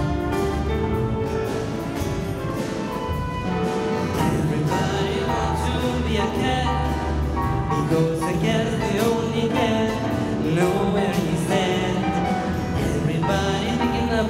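A school orchestra playing live, with strings and other instruments, and voices singing over it.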